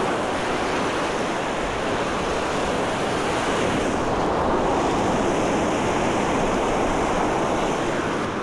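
Ocean surf breaking and washing up a sand beach, a steady rush of noise that swells a little around the middle, mixed with wind.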